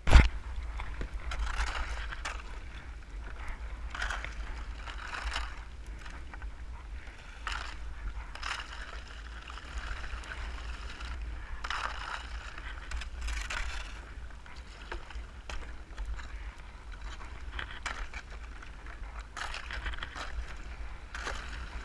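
Sea kayak paddled through floating brash ice: splashing paddle strokes and chunks of ice scraping and crunching against the hull in irregular surges every second or two, over a steady low rumble. A loud knock comes right at the start.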